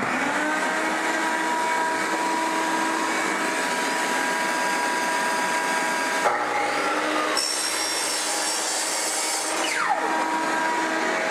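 Shop vacuum running steadily. A Ryobi miter saw starts about six seconds in, cuts through a laminate floor plank, and spins down with a falling whine near ten seconds.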